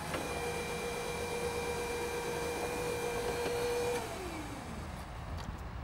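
Forklift truck's motor whining at a steady pitch as it brings up its load. About four seconds in, the whine slides down and dies away as it stops.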